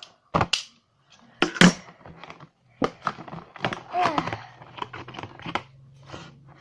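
A taped parcel being torn open by hand: sharp cracks of tape and plastic packaging, the loudest about a second and a half in, followed by a run of smaller crackling and crinkling.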